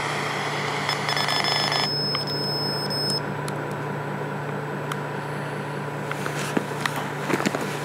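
Radio static hiss from a ghost-hunting spirit box over a steady low hum. The brighter upper part of the hiss cuts off about two seconds in as the device is stopped, leaving a fainter hiss and a thin steady tone.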